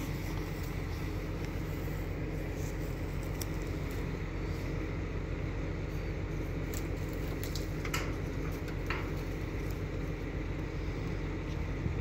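An engine running steadily, a low even rumble, with a few faint clicks about two-thirds of the way through.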